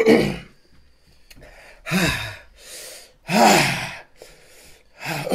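Men gasping and blowing out hard breaths, four or five in turn, some ending in a short falling groan, from the burn of an extremely hot chili-coated peanut.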